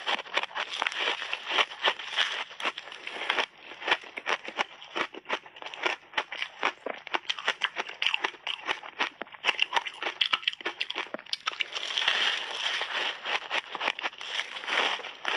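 Frozen layered ice cake being bitten and chewed: a rapid, continuous run of sharp crackles and cracks. There are denser bursts of crunching near the start and again about twelve seconds in.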